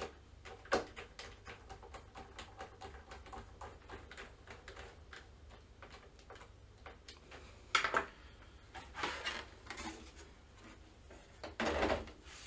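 Small screw being driven in by hand to fasten the PS5's M.2 expansion-slot cover: a run of faint, rapid little clicks. A few louder knocks and clatter follow, one about two-thirds of the way in and more near the end.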